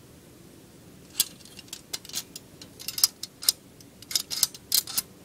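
Metal spike of a metal maze puzzle cube clicking and tapping against the maze's metal plates as it is slid and turned through the slots. A scatter of sharp ticks starts about a second in and comes more and more often.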